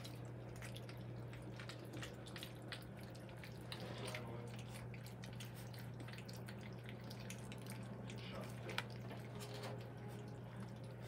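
Three-week-old Cane Corso puppies lapping and smacking at wet puppy-food mush in a stainless steel saucer pan: faint, irregular wet clicks and slurps, over a steady low hum.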